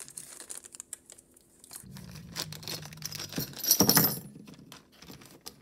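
Small clear plastic jewelry bag crinkling and rustling as it is handled and opened, with scattered light clicks; the loudest crinkle comes about four seconds in, as the pins are taken out of the bag.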